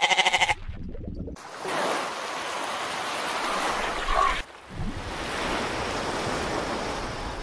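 A goat's quavering bleat, cut off within the first half second, then a steady rush of water, waves washing over a sandy and pebbly shore, with a short break about four and a half seconds in.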